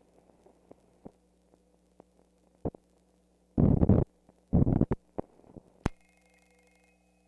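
Old film soundtrack running out at the end of the reel: scattered crackles and pops, then two short loud rumbling thumps about three and a half and four and a half seconds in, a sharp click, and a steady hum from about six seconds in.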